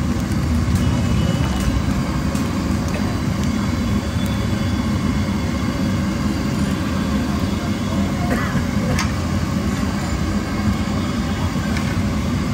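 Green aloo bhujia deep-frying in a large kadhai of hot oil: steady bubbling and sizzling over a continuous low roar, with a few light clicks of the perforated ladle against the pan.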